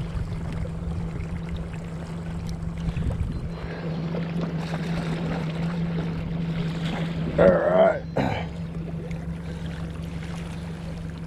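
Boat motor running steadily at trolling speed, a low hum, with water washing along the hull. Around seven to eight seconds in, a brief, loud, wavering pitched sound rises over it twice, the second time shorter.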